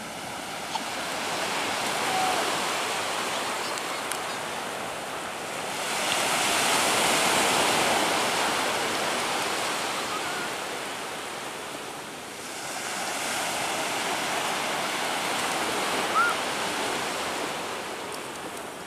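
Sea waves breaking and washing up the beach in a steady hiss that swells and ebbs three times.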